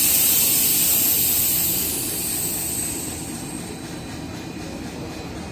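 Loud hiss of compressed air let out from a standing Milan Metro Line 2 train of the old traditional stock, dying away over the first three seconds and leaving a low steady rumble.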